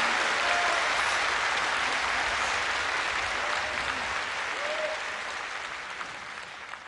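A large audience applauding at the end of a tenor aria, with a couple of brief calls from the crowd. The applause slowly dies away and thins to scattered claps near the end.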